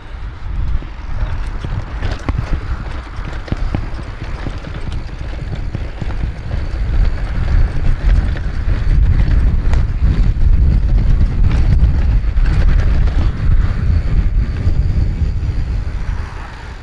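Mountain bike riding a forest trail, heard from a camera on the bike or rider: wind buffeting the microphone in a heavy low rumble, with rattles and knocks from the tyres and bike going over rough ground. It grows louder after a few seconds and eases near the end.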